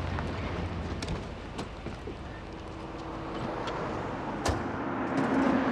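A car running amid street traffic, a steady low hum and wash of noise, with a few sharp clicks and knocks; the loudest knock comes about four and a half seconds in.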